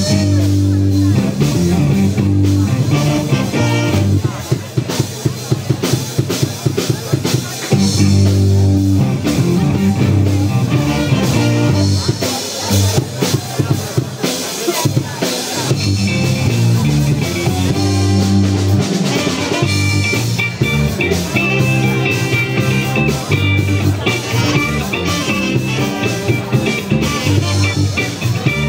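Live funk band playing: drum kit keeping a steady beat under a repeating bass line, with electric guitar and horns (saxophone, trumpet and a brass bass horn). Held horn notes come in over the groove in the second half.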